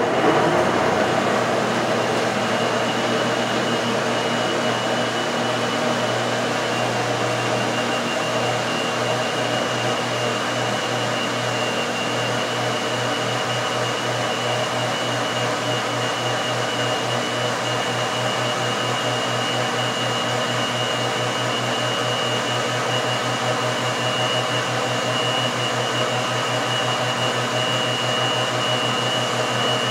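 Countertop blender running steadily, puréeing cooked pineapple with cinnamon water, with a thin high whine over the motor.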